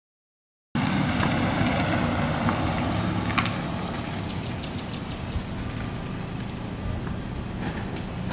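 Car engine running steadily, a low hum that starts abruptly after silence about a second in and eases off slightly.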